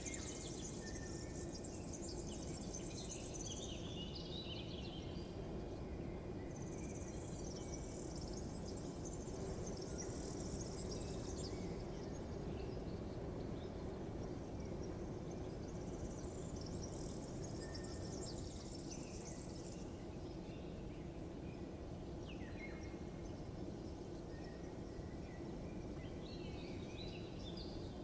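Outdoor morning ambience: a steady low background noise, over which birds chirp in spells of a few seconds about every eight seconds.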